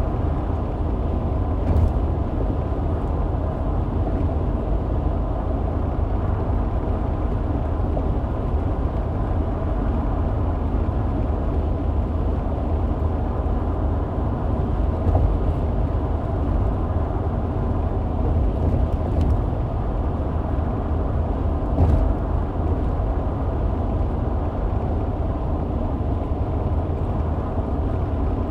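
Steady low rumble of a car being driven, road and engine noise heard from inside the car, with a couple of faint ticks about two seconds and twenty-two seconds in.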